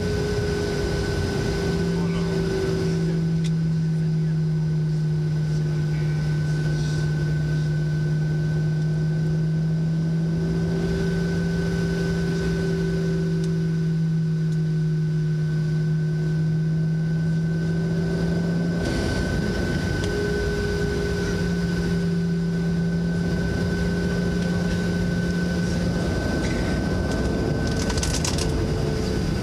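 Boeing 737-700 cabin noise heard from a passenger seat: a steady drone with a low hum that wavers slightly in pitch and a thin, steady high whine, from the airliner's engines and air systems running on the ground before taxi.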